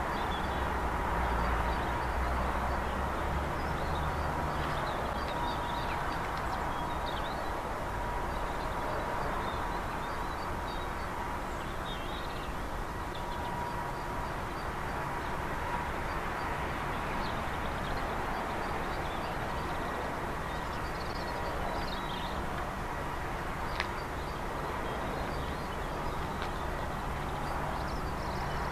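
Steady low rumble of an approaching Colas Rail Class 70 diesel locomotive hauling a loaded log train, heavier in the first few seconds and again near the end as it draws closer. Small birds chirp at intervals over it.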